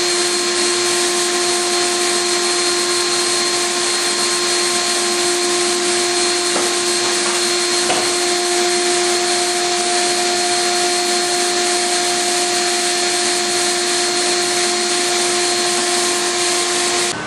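Electric diamond core drill running steadily with a constant motor whine, cutting through a suspended concrete floor slab, and cutting off at the end as the core comes free.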